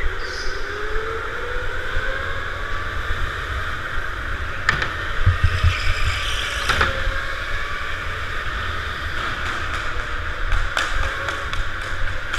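Racing go-kart heard from on board at speed: a steady low rumble under a thin motor whine that slowly rises and falls as the kart speeds up and slows through the corners. Several sharp knocks or clatters come through, around the middle and near the end.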